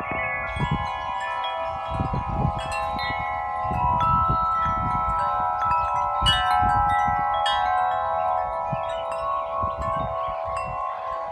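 Several wind chimes ringing together in the wind, struck again and again so their long tones overlap, with a gusty low wind rumble on the microphone underneath.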